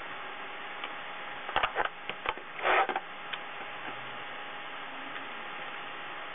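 Sheet-metal blower housing handled on a wooden workbench: a few sharp knocks about a second and a half in, then a short scraping rattle, over a steady faint hum and hiss.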